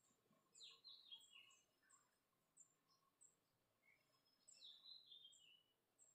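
Near silence with faint bird chirping: two short runs of descending notes, about a second in and again about five seconds in, with small high chirps between.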